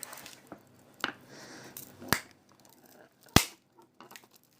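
Four sharp clicks and snaps from a mobile phone's parts being taken apart by hand, the loudest a little over three seconds in.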